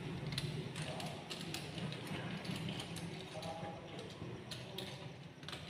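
Irregular small clicks and scrapes of a bare wire being bent and threaded through the brass screw terminals of socket fittings on an electrical switch board, over a low steady hum.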